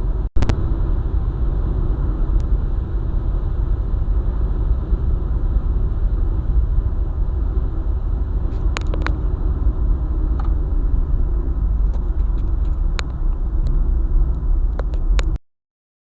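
Car driving along a highway: a steady low rumble of road and engine noise, with a few light clicks in the second half. The sound cuts out abruptly near the end.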